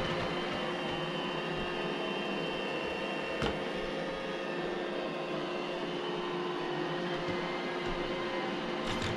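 iRobot Roomba j7 robot vacuum running steadily as it cleans, a level motor-and-brush hum with a few steady tones, and one brief knock about three and a half seconds in.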